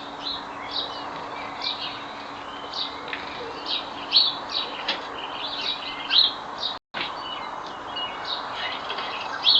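Small garden birds chirping: short, high chirps come one or two a second, some in quick clusters, over steady outdoor background noise.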